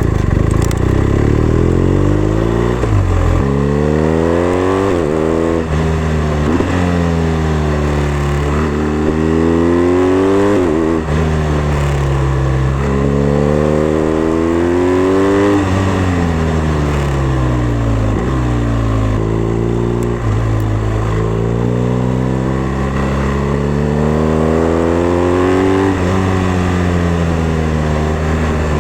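BMW R1250RS's boxer twin engine under way, its revs climbing as it accelerates, with quick drops at upshifts and slower falls as it eases off for curves, over and over.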